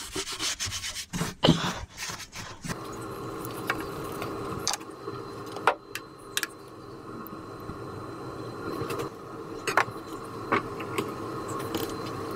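Rough rubbing of a glove or cloth against the camera microphone for the first two to three seconds. It then gives way to a steady hum with a few sharp clicks and light knocks as a brake fluid bottle and its cap are handled.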